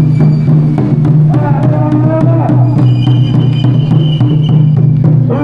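Loud music with a steady drum beat and a heavy, constant bass, which stops abruptly at the very end.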